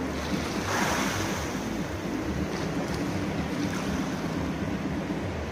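Small sea waves washing in at the shoreline as a steady surf hiss, with one wash swelling about a second in. Wind noise rumbles on the microphone underneath.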